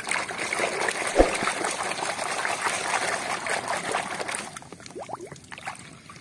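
Water sloshing and splashing in a plastic basin as a hand scrubs a muddy plastic toy train under the surface, with a single knock about a second in. After about four and a half seconds the sloshing thins to a few splashes and drips as the toy comes up out of the water.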